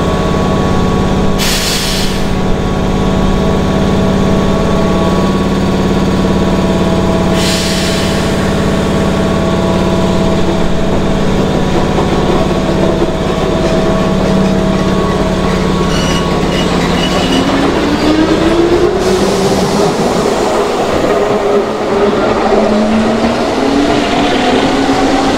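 Keihan electric commuter train at the platform with a steady hum from its under-floor equipment and two short hisses of air, then pulling away: from about two-thirds of the way in, its motor whine rises in pitch in steps as it accelerates.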